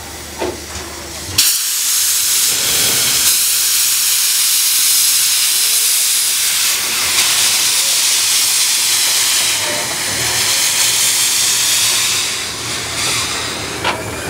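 Steam locomotive C62 2 venting steam: a loud hiss starts suddenly about a second in, holds steady for about ten seconds, then eases near the end.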